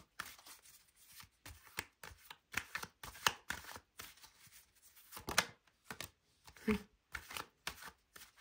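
Tarot cards being shuffled and handled, a run of quick, irregular papery snaps and rustles.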